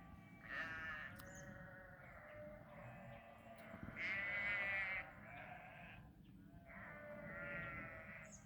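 A flock of sheep bleating: several overlapping calls follow one another, the loudest about four seconds in.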